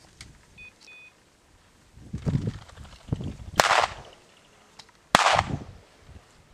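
Two shotgun shots about a second and a half apart, each a sharp crack with a short echoing tail, fired at a pheasant flushed from a Brittany's point.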